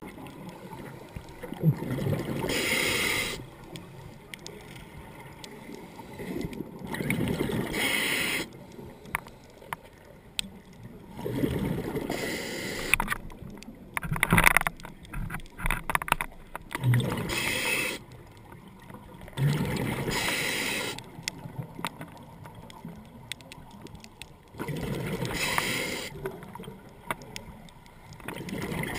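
Scuba diver breathing through a regulator underwater: a sharp hiss on each inhale, then a bubbly rush of exhaled air, repeating every few seconds.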